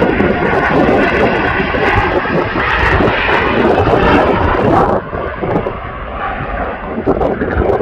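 Boeing 787 jet engines at takeoff thrust, a loud steady rush as the airliner rolls, rotates and lifts off. The noise eases a little about five seconds in as it climbs away.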